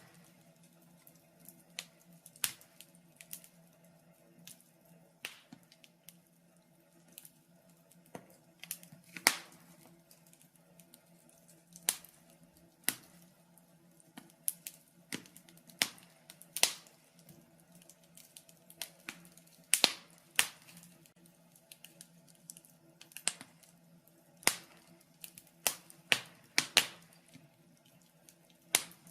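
Wood fire crackling in a fireplace: irregular sharp pops and snaps, about one or two a second, a few much louder than the rest. A faint, steady low hum runs underneath.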